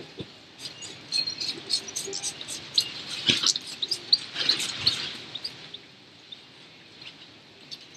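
Hand spray bottle squirting ACF50 anti-corrosion fluid onto a motorcycle, in quick short hisses and clicks with a single knock a little past three seconds. It goes quieter after about five and a half seconds.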